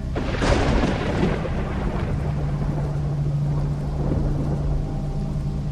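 Thunderclap sound effect: a sudden crash about a quarter second in that rumbles away over a second or two, over a steady low droning music bed.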